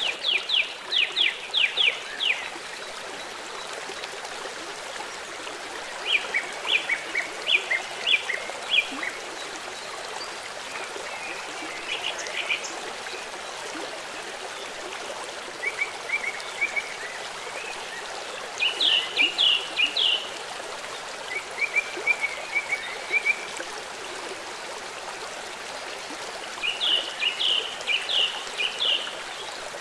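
A bird calling in short bouts of rapid chirps, several notes to a bout, every few seconds, over a steady hiss like running water.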